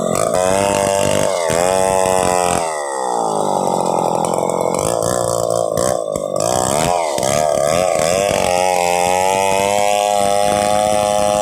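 Stihl 070 two-stroke chainsaw running at high revs while ripping a log, its pitch sagging and picking up again several times under the load of the cut, then holding steady near the end.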